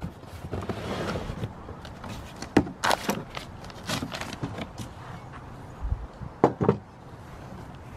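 Lodge Sportsman's Grill cast iron parts and their cardboard box being handled: rustling, with several sharp knocks, two close together near the end.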